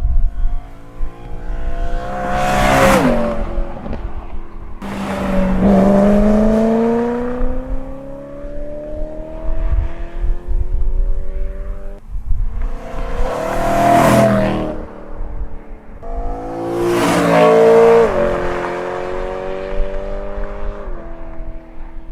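BMW E92 M3's V8 with a Borla ATAK exhaust, without venturis, accelerating past several times: the engine note climbs steadily, rises to loud peaks as the car goes by, and drops sharply at upshifts.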